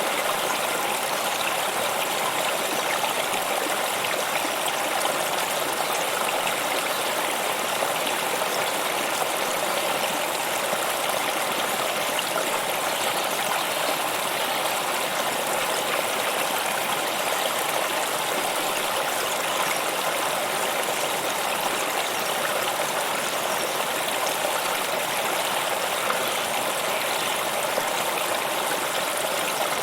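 Stream water flowing and splashing over rocks in an even, steady rush.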